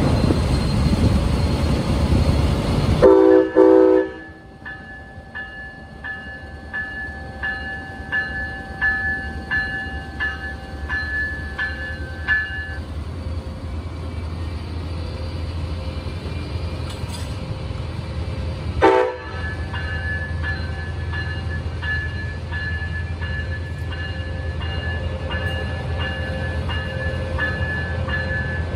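Siemens ALC-42 diesel locomotive's Cummins engine running close by, then a loud horn blast about three seconds in. A bell then rings steadily at about one and a half strokes a second until around twelve seconds, with the diesel running low beneath. A short horn toot comes just past the middle, and the bell starts ringing again.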